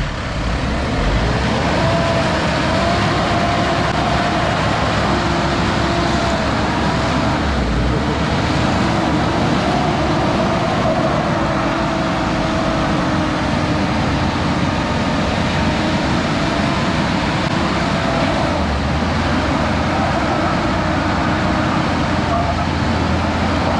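Mitsubishi L200 Triton pickup's engine revving hard under load, its pitch wavering up and down, as the truck strains to tow a bus stuck in deep mud. Its tyres spin and churn through the mud.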